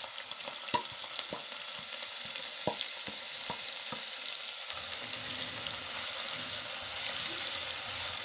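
Onions sizzling as they fry in hot cooking oil in a sufuria, with sharp clicks of stirring against the pot during the first four seconds or so.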